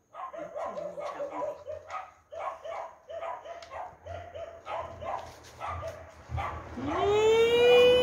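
Dogs yapping in quick runs of short barks, then a long drawn-out call that rises and is held for about two seconds near the end, the loudest sound.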